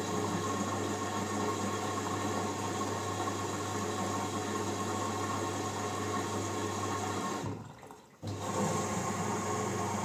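LG Direct Drive front-loading washing machine on a wash cycle: the drum tumbling wet laundry with water sloshing over a steady motor hum. The sound fades out for under a second near the end, then comes back abruptly.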